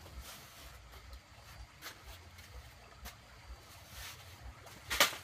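A few short, scratchy swishes of a grass broom sweeping a dirt floor, coming at uneven intervals, with the loudest stroke near the end.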